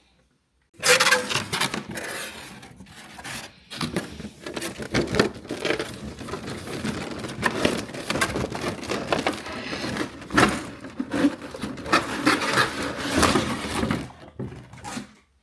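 Cardboard figure box and plastic blister packaging being handled and pulled open: continuous scraping and crinkling with sharp clicks and knocks. It starts about a second in and stops just before the end.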